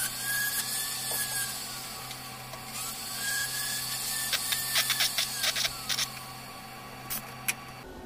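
A small hand-held gas torch hissing in two bursts of about a second and a half, each carrying a faint whistle that rises and falls, while parts are being soldered onto a bronze model tank. Between and after them, a run of light clicks and taps from small metal tools, over a steady low hum that stops near the end.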